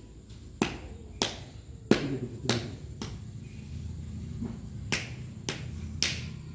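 A series of sharp snaps, about one every half second: five in a row, a pause, then three more.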